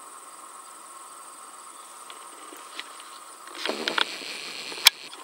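A faint steady outdoor hiss with a constant high buzz. From about three and a half seconds in comes louder rustling with sharp clicks, typical of a hand-held camera being handled and shifted.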